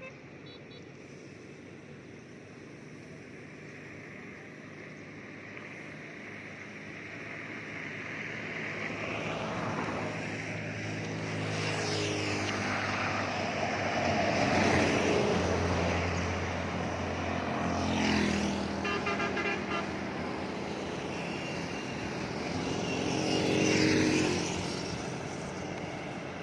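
Motor vehicles passing close by on a road one after another. The engine and tyre noise builds over the first half, with three loudest passes in the second half.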